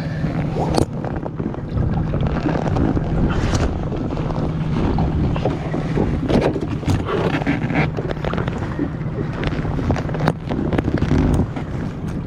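Wind buffeting the microphone aboard a boat, over a steady low hum from the boat's engine, with scattered knocks and clatter.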